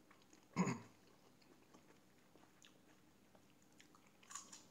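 A person chewing food at close range, with a short louder sound about half a second in and another brief one near the end.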